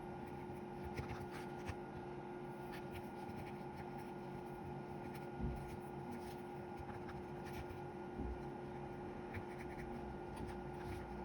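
Light scratching and rubbing from hands working on a radio's keypad circuit board, with scattered small clicks and one knock about halfway through, over a steady hum.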